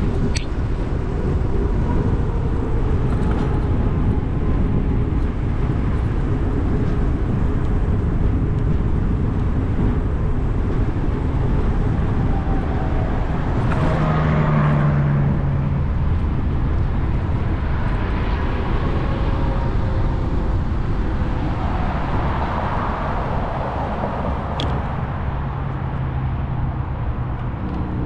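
Steady wind and rolling noise from riding an electric fat-tire bike, picked up by a camera mounted on the bike. A brief low hum shows about halfway through.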